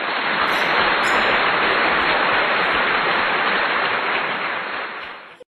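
Loud, steady hiss like static or white noise, with no pitch or rhythm. It cuts in abruptly and cuts off abruptly near the end.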